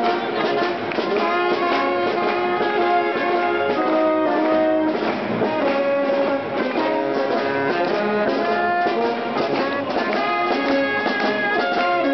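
Live brass band with tuba and trumpet playing a tune.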